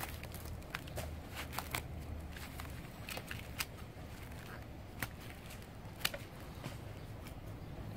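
Pruning shears snipping through woody roots: a string of sharp, irregularly spaced snips and crackles.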